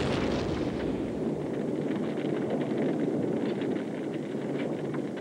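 Missile launch: a sudden blast, then the rocket motor's roar with crackling for about five seconds, easing off near the end.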